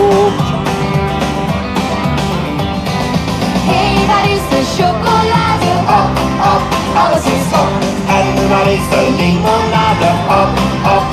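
A woman singing a pop song into a microphone, amplified over loud music with a steady beat.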